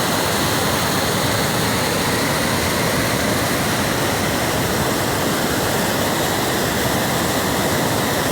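Water rushing steadily, an even noise without breaks or changes.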